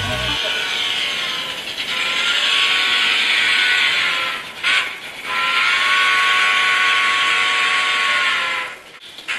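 Steam whistle from an HO model steam locomotive's sound decoder, two long hissy blasts with a short break between them.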